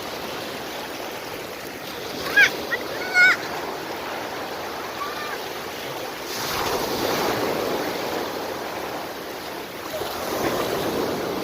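Sea waves washing onto a beach: a steady surf hiss that swells about six seconds in and again near the end. Two or three short, high-pitched cries ring out about two to three seconds in.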